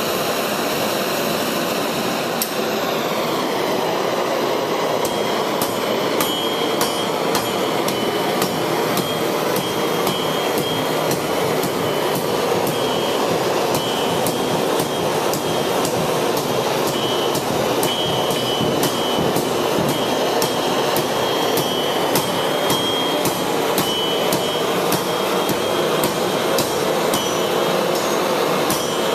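Hand hammer striking a red-hot steel bar on an anvil in a steady rhythm of blows, starting a few seconds in, with a bright ring on many strikes. Under it runs a constant rushing roar from the forge's air blast.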